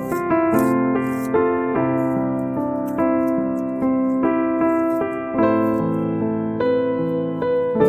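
Background keyboard music: a slow piano-like melody over held chords, each note struck and fading.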